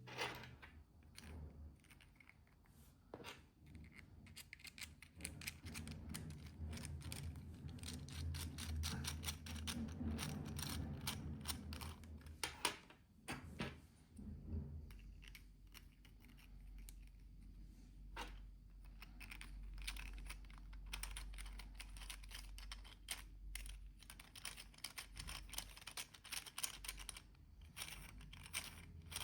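Faint, irregular clicks and light clatter of small 3D-printed plastic parts being handled and fitted together by hand, over a low steady hum.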